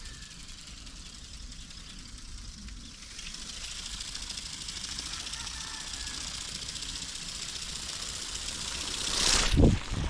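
Remote-controlled flapping-wing toy bird (ornithopter) in flight: its small electric motor and beating wings make a steady fast buzz, which grows louder about three seconds in, over wind rumble on the microphone. A loud whoosh rises and falls near the end.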